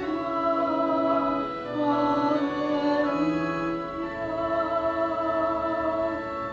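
Sung Gospel Acclamation (Alleluia) at Mass: church singing with instrumental accompaniment, moving slowly through long held notes.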